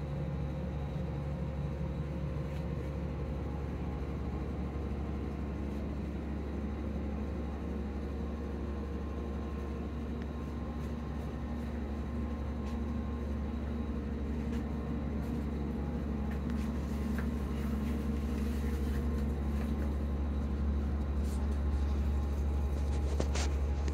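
Steady low machine hum, with a few faint clicks near the end.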